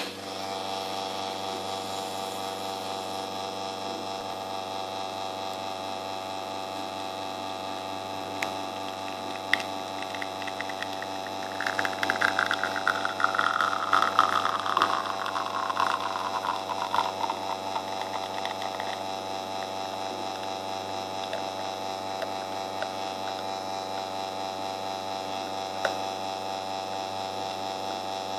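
Espresso machine pump humming steadily as it pushes water through a bottomless portafilter. From about 12 to 19 seconds in, a louder trickling hiss, falling in pitch, rides on top as the espresso stream runs into the glass.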